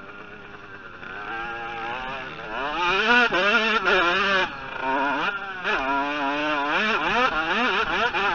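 Motocross dirt bike engine heard from on board while riding the track: the revs rise and fall again and again with throttle and gear changes. It is fairly quiet for the first couple of seconds, then much louder from about a third of the way in.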